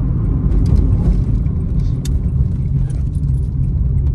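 A moving car heard from inside the cabin: a steady low rumble of engine and road noise, with scattered light clicks and rattles.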